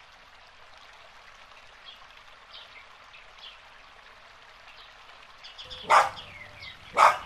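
Faint garden ambience: a soft trickle of water and a few short bird chirps. Then a dog barks twice, loud and short, about six and seven seconds in.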